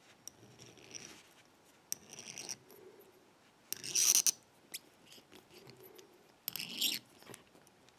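Small hand thread tap being turned in a pin chamber of a euro cylinder plug, cutting threads by hand: scattered metal scrapes and clicks, with a louder scrape about halfway through and another near the end.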